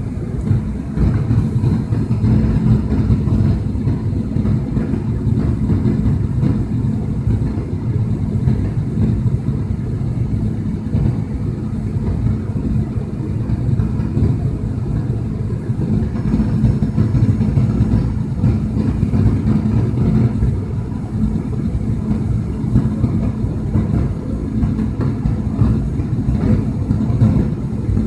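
Airliner cabin noise: a steady low rumble of engines and airflow with a faint steady hum running through it.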